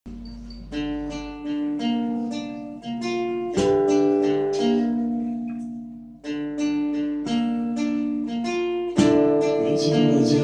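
Guitar playing a picked song intro: a repeating phrase of single plucked notes that ring on, turning louder and fuller about nine seconds in.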